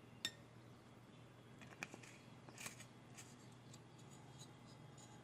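Faint, scattered clicks and light scrapes of a spoon against a mixing bowl while olive oil goes into the flour and ginger mix; otherwise near silence.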